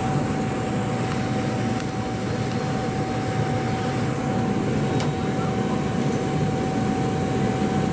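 Steady drone of airport ramp machinery at the gate, heard from inside a jet bridge: a constant hum carrying a steady mid-pitched tone and a thin high whine, with one faint click about five seconds in.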